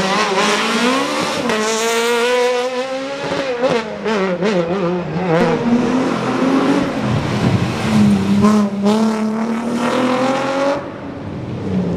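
Rally cars' engines revving hard through a corner, the pitch climbing and dropping again and again with the gear changes and lifts: first a Citroën C2, then a Nissan 350Z. Sharp crackles and some tyre squeal come in among the engine note.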